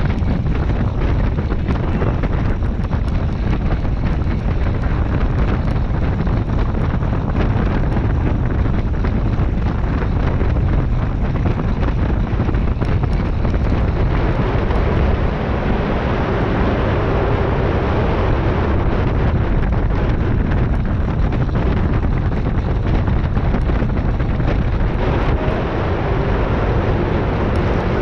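Steady rush of wind buffeting the microphone of a camera on a track bike's handlebars at racing speed, mixed with the rolling of the bike's tyres on the wooden velodrome track.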